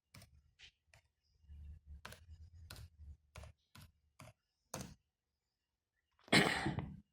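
Keys on a laptop keyboard being pressed one at a time as a password is typed, about ten separate clicks over five seconds. Near the end comes a short, louder rush of noise lasting under a second.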